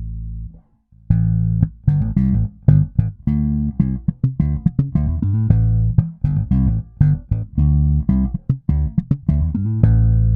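Fender Japan Jaguar Bass, recorded direct through a preamp. A held note is cut off about half a second in, and after a brief gap comes a fast, busy line of plucked notes. It ends on a long held low note that rings on.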